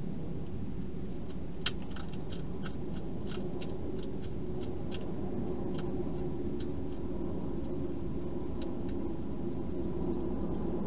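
European hedgehog crunching dry food inside a plastic feeding box: a run of sharp, irregular crunches starting about a second and a half in, thinning out after a few seconds, over a steady low background hum.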